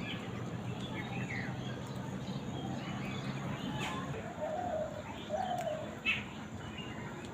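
Birds calling: scattered short high chirps, with two lower, short calls about midway through.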